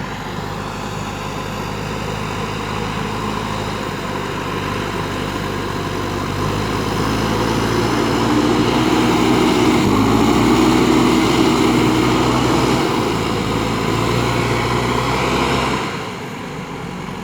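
Diesel engine of a JCB 3DX backhoe loader running, rising in level and pitch partway through as it works under load, then easing back near the end.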